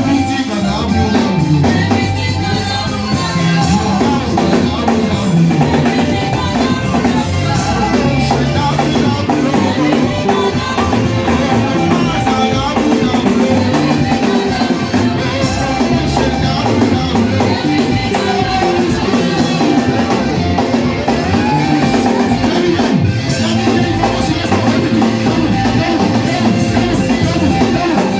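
Church praise music played by a band with a drum kit, with singing.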